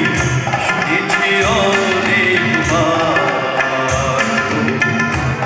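A man singing a Bengali song live, accompanied by tabla with regular deep bass strokes and a small band.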